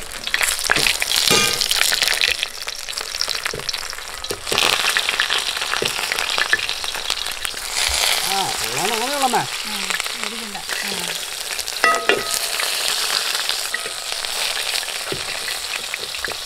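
Banana-leaf parcels sizzling in hot coconut oil in an uruli, with a spatula scraping and clicking against the pan as the parcels are turned over.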